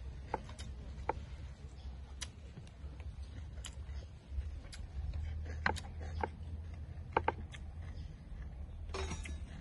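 Scattered light clicks and crinkles from crisp cabbage leaves and a coconut-shell spoon being handled while spiced minced frog is spooned into a leaf and folded, with a short flurry of crinkling near the end. A steady low hum runs underneath.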